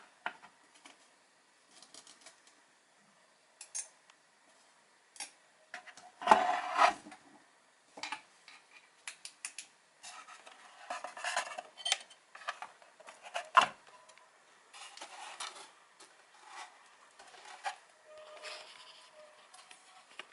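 Scattered light clicks, taps and scraping from hands handling the opened subwoofer cabinet, with a louder clatter about six seconds in and a sharp knock near the middle.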